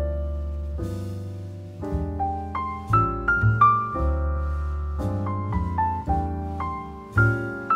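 Background piano music: a gentle melody of single struck notes over low held bass notes.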